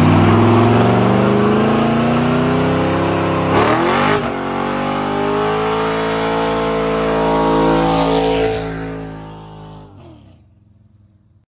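Chevrolet squarebody pickup's engine revving hard and held at high revs through a burnout, with the rear tires spinning on the pavement; the revs dip briefly about four seconds in, and the sound fades out after about nine seconds.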